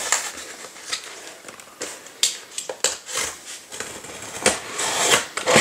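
A small box cutter slicing through tape along the seam of a cardboard box: irregular scratching and crackling with sharp clicks, and a longer scrape about five seconds in.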